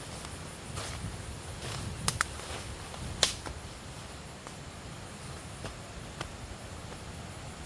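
A few sharp cracks or snaps over a steady low rumble: two close together about two seconds in, the loudest just after three seconds, and a smaller one a little after six seconds.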